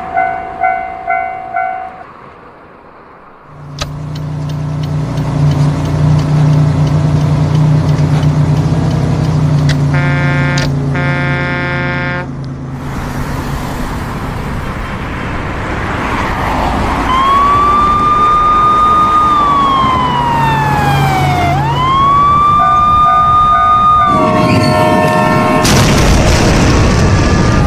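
Railway level-crossing sound effects. A crossing bell dings rapidly for the first two seconds. After a short lull a train's engine runs, with a horn blast around ten seconds in. From about seventeen seconds a siren wails up and down, and near the end there is a loud crash as the train hits a car.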